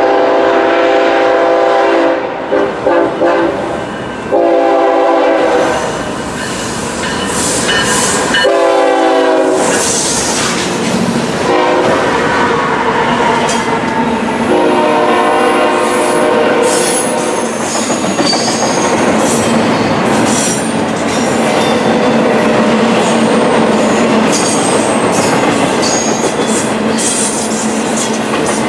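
BNSF freight locomotive's air horn sounding several blasts over the first ten seconds, the last long one ending about nine seconds in. Then the steady rumble and clatter of double-stack intermodal container cars rolling past on the rails, with faint high wheel squeals.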